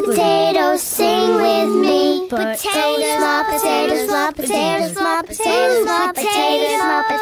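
Children's voices singing a song together, with light instrumental backing.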